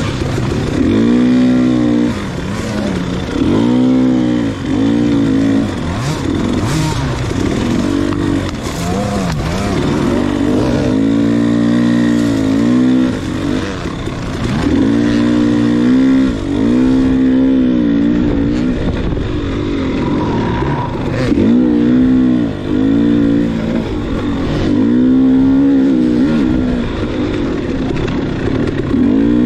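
Enduro dirt bike engine under hard riding, the throttle worked on and off so that the engine note climbs and drops over and over, each swell lasting a second or two.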